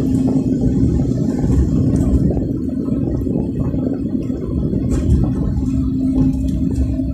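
Steady rumble of a car driving at highway speed, heard from inside the cabin: tyre and road noise on concrete pavement with an engine hum.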